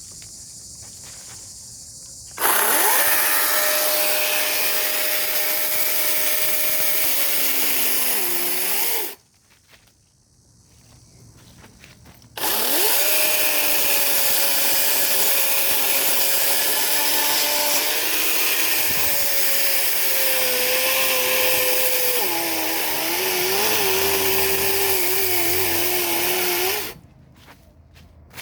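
Electric chainsaw run in two bursts. Each burst spins up quickly, runs at a steady pitch and stops dead. In the longer second burst the pitch drops twice as the chain bogs down cutting into a branch.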